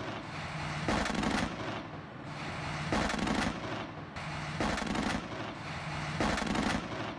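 Gunfire in sharp, repeated bursts about every one and a half to two seconds, each trailing off in a long echo, over a low steady hum.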